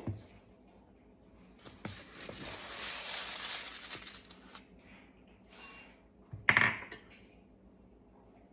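Dry crumble ingredients poured from a measuring cup into a ceramic mixing bowl: a soft rustling hiss for about three seconds, followed a couple of seconds later by a sharp clink of a measuring cup or spoon knocking against the bowl.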